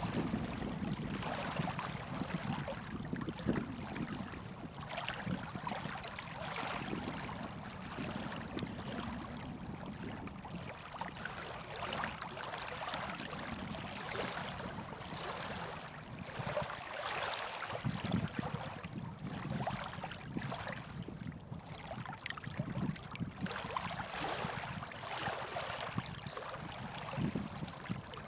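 Choppy lake water lapping and splashing against shoreline rocks in uneven, irregular washes.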